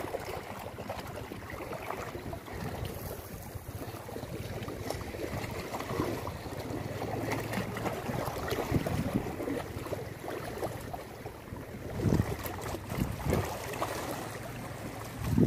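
Wind buffeting the microphone, with a few stronger gusts, over sea water lapping against the rocks of the shore.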